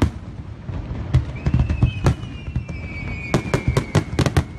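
Aerial firework shells bursting in quick succession, with sharp bangs that come thicker and faster from about three seconds in. A long, high, thin whistle, slowly falling in pitch, runs through the middle.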